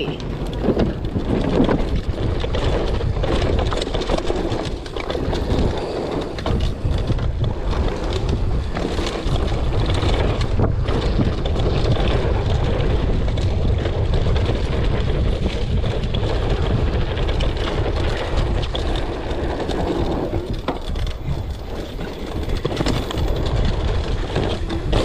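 Wind buffeting the microphone while a mountain bike rides down a trail, with steady rumble and frequent short knocks and rattles from the bike over bumps.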